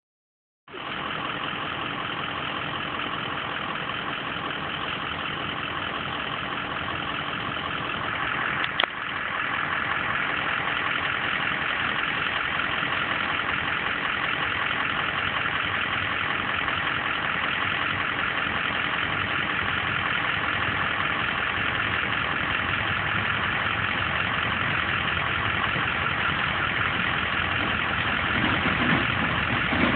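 Diesel-electric freight locomotive engine running steadily as it slowly approaches, growing a little louder toward the end. A single sharp click sounds about nine seconds in.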